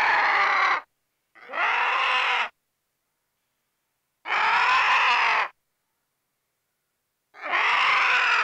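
An animal's harsh, raspy call, about a second long, repeated four times with silent gaps between.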